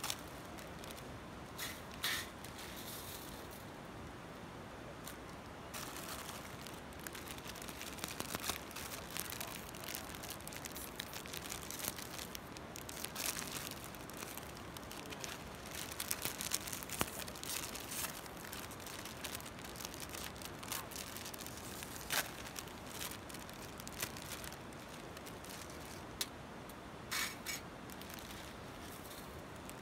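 Plastic instant-noodle wrappers crinkling and being torn open, in scattered rustling stretches with short sharp clicks, over a steady faint hiss.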